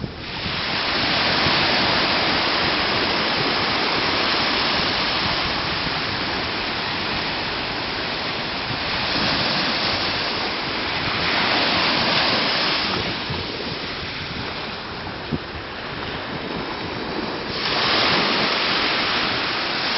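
Shallow sea surf washing in and out over a sandy shore: a continuous rushing hiss that swells and eases every few seconds. Wind buffets the microphone, adding a low rumble.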